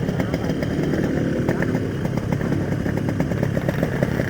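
Yamaha RX-King 135cc two-stroke single-cylinder motorcycle engine running under way at a fairly steady pitch, its exhaust note broken by frequent short sharp ticks.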